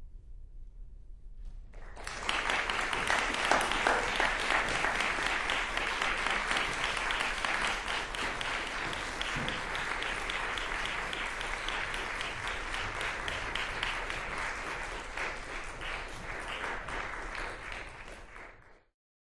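Crowd applauding: dense clapping that starts abruptly about two seconds in and cuts off suddenly near the end.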